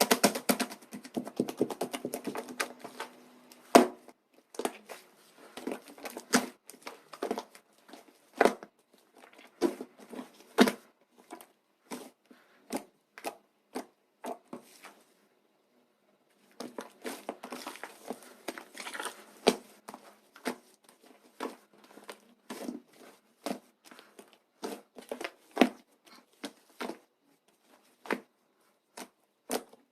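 Slime being squeezed and poked by hand, giving irregular crackling clicks and wet pops. There is a pause of near silence about halfway through.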